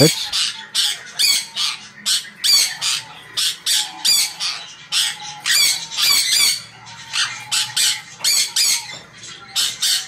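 A flock of sun conures screeching, short harsh shrill calls following one another two or three a second and sometimes overlapping.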